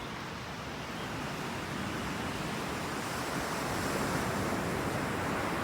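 Ocean surf washing in, a steady rush that grows a little louder after about a second.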